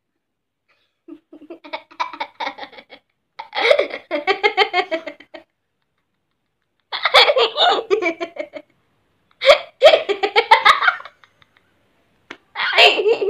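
A young boy laughing hard, open-mouthed belly laughs in about five bouts with short pauses between.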